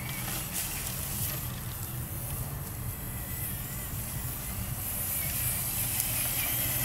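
Traxxas TRX-4 Sport 1/10-scale RC crawler driving over loose wood-chip mulch: its brushed electric motor and gears run with a wavering whine while the tyres crunch and scatter chips, louder over the last couple of seconds as it comes close.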